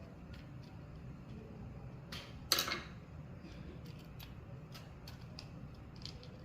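Small clicks from hand-handling the parts of a disassembled rotary hair clipper, with one short, sharp clatter about two and a half seconds in.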